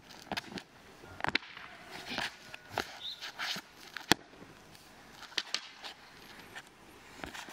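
Wooden staff swishing through the air and feet stepping and scuffing on concrete, a string of short swishes with one sharp crack about four seconds in.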